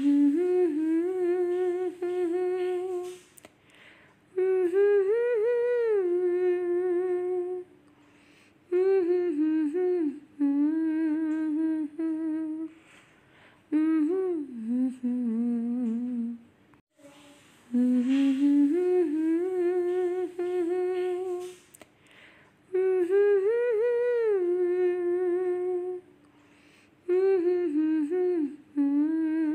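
A voice humming a slow melody in phrases of a few seconds, with long held notes and short pauses between them; the same run of phrases repeats about halfway through.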